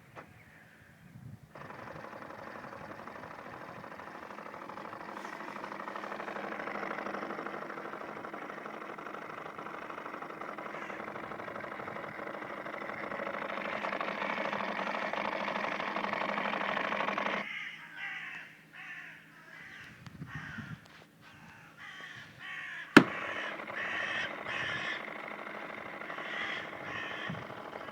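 Ford Mondeo Mk3 headlight units making a harsh, buzzing 'funny noise' with the lights switched on, a source the owner cannot identify; it runs steadily for about sixteen seconds and then cuts off suddenly. Later there is one sharp click, followed by short, stuttering bursts of buzzing.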